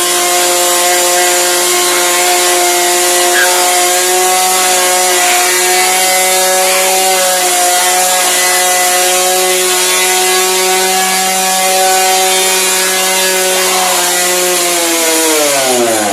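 Repaired Yamaha motorcycle engine held at steady high revs, a loud buzzing drone; near the end the revs fall away and the engine winds down.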